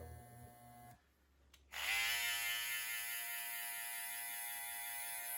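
A faint trimmer hum stops about a second in. After a click, a corded Andis T-Outliner hair trimmer switches on and runs with a steady, louder electric buzz.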